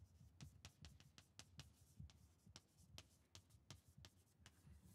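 Chalk writing on a blackboard: a quick run of faint taps and short scratches, about three or four a second, as words are chalked up.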